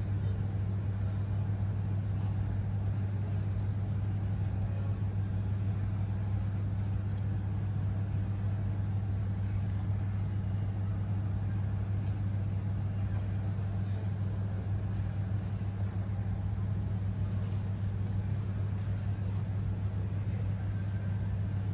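Steady low hum over a faint background hiss, with no beeping: the Dell laptop powers on without its five-beep error now that the CMOS battery has been replaced.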